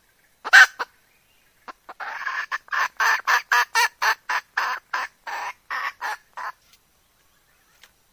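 Red junglefowl hen cackling: one loud call, then a run of about a dozen short, sharp notes at roughly three a second that grow weaker toward the end. It is the call of a hen ready to mate, used to lure in males.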